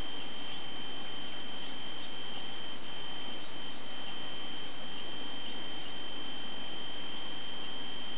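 A steady high-pitched electronic whine over constant hiss, the noise of a nest-box camera's audio feed.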